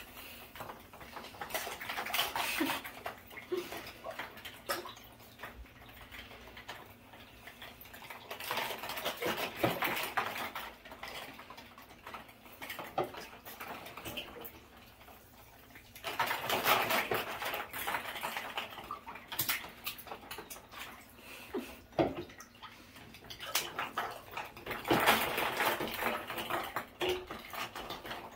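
Bathtub water splashing and sloshing as a mink swims, in several surges, with hollow plastic eggs clicking and knocking against each other and the tub.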